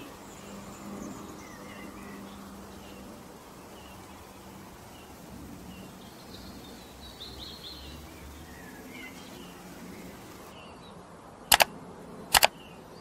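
Birds chirping faintly and sporadically over a steady background hiss. Near the end come two sharp mouse-click sound effects, under a second apart, as the cursor clicks the Subscribe and Like buttons.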